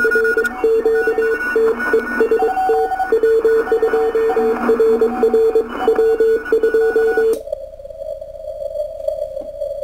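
Morse code (CW) from a Kenwood R-1000 shortwave receiver heard through an audio filter. Several stations key on and off at different pitches over band noise, the strongest beeping steadily in dots and dashes. A little over seven seconds in, the sound abruptly shrinks to a thin, steady band of filtered hiss as the filter is switched to a narrow setting.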